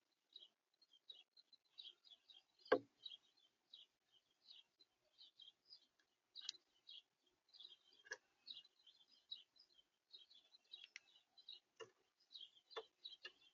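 Small birds giving quick, high chirps over and over, faint, with a few sharp taps mixed in; the loudest tap comes about three seconds in.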